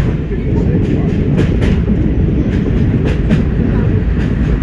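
Class 104 diesel multiple unit running along the line, heard from the driver's cab: a steady low rumble of its underfloor diesel engines and running gear, with frequent, irregular sharp clicks of the wheels on the track.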